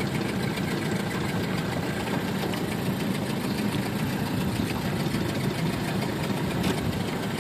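Boat motor running steadily at low speed, an even rumble with water noise.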